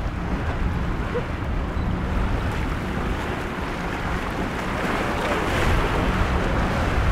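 Wind buffeting the microphone over choppy inlet water and surf, a steady rushing noise that swells somewhat louder about five seconds in.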